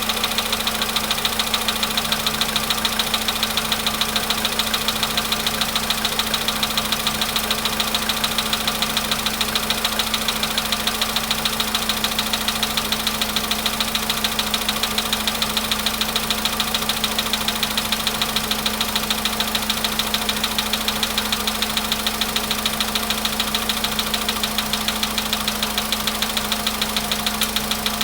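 Volkswagen Polo sedan engine idling with a steady, rapid, regular knock (the owner's word is 'banging', «долбит») at high mileage, not long after a cold start.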